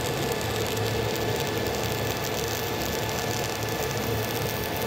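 Gas-shielded (dual-shield) flux-cored welding arc crackling steadily as a bead is run. The arc is set 3 volts low, at 23.5 V with 450 in/min wire feed, so it runs shorter and throws a little more hard spatter.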